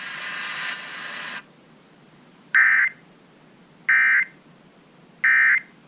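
Emergency Alert System end-of-message data burst over FM radio: three short, identical bursts of the warbling SAME digital code, about a second and a half apart. A steady hiss cuts off just before them, about a second and a half in.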